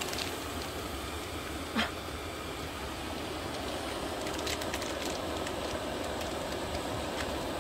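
Portable gas burner running under a cast-iron Dutch oven, a steady rushing roar as it heats the pot. A sharp click about two seconds in and a few faint ticks near the middle.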